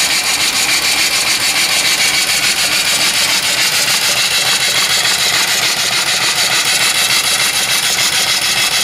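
Vertical single-cylinder steam engine (3-inch bore, 4-inch stroke) running on about 60 psi of boiler steam, its exhaust blowing off in a loud, steady hiss that pulses in a rapid, even beat of puffs.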